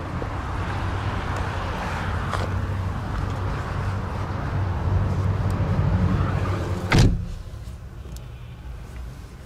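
Steady outdoor noise, then the front passenger door of a 2014 Datsun on-DO shutting with a single solid thud about seven seconds in. After it the sound is muffled, as heard from inside the closed cabin.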